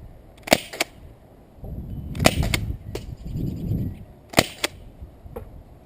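Euromax SG9000 CO2 airsoft shotgun firing three shots in semi-auto. Each sharp pop is followed about a quarter second later by a second click, with a low rumble between the second and third shots.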